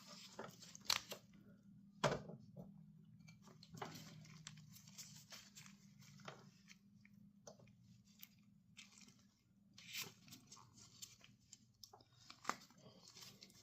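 Faint scattered clicks and rustles of hands working a greased 530 chain master link and its O-rings, the sharpest clicks about one and two seconds in, over a low steady hum.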